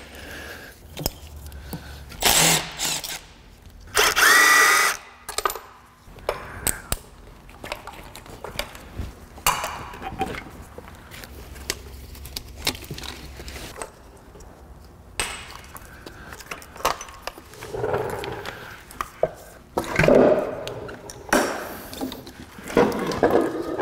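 Hand work on a bare Honda K-series engine: clicks, rattles and scraping as the wiring harness and its plastic connectors are unclipped and pulled off. Louder scraping bursts come about 2 and 4 seconds in, and again near the end.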